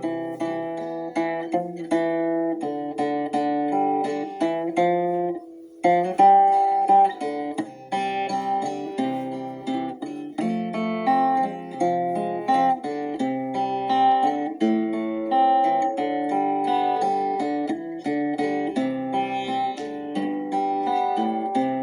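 Instrumental acoustic guitar music for meditation, a steady run of plucked notes. A short pause comes about five and a half seconds in before the picking resumes.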